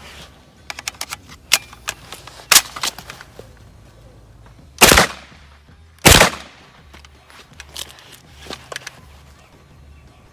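A POF 5 9 mm semi-automatic pistol fires two loud shots a little over a second apart. Several fainter sharp cracks come before and after them.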